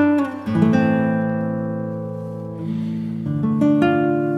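Background music: slow guitar chords that are struck and left to ring out. A new chord comes in about half a second in, and a few more follow in the last second and a half.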